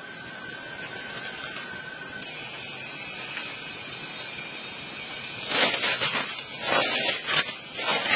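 Steady high insect buzzing, one tone giving way to a higher, louder one about two seconds in; from about five seconds in, a few rustling, scraping strokes of leafy sticks being handled.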